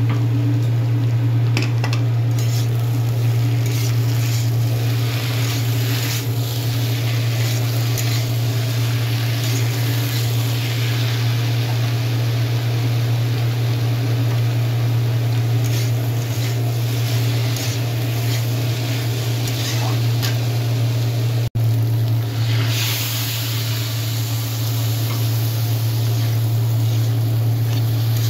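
A metal spatula stirring and scraping potatoes coated in poppy-seed paste in a wok, with a light sizzle of frying, over a steady low hum.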